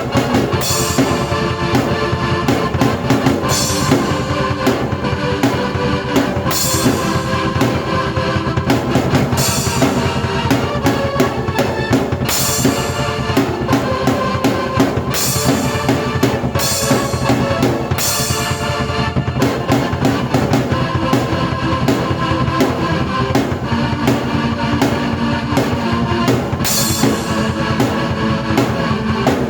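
A drum kit and a keyboard played together in a steady rock-style beat, with the keyboard holding chords over kick and snare and cymbal crashes recurring every couple of seconds.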